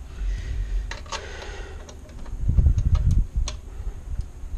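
Scattered light clicks and knocks of metal and plastic parts being handled and fitted, with a low rumble of handling about two and a half seconds in.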